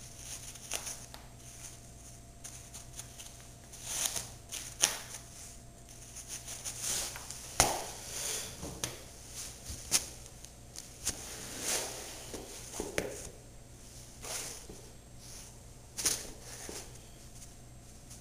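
Canvas-and-rubber sneakers scuffing, tapping and knocking on a smooth concrete floor as a shoe is worked off the foot: scattered short scrapes and sharp taps, the sharpest a little under halfway through and again near the end.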